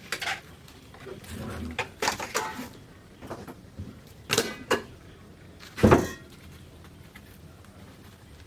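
A handful of separate knocks and clanks of metal tools and workpiece being handled, a few with a short ring, the loudest about six seconds in.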